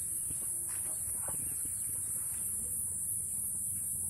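Laying hens giving a few faint short calls, about a second in, over a steady high-pitched hiss.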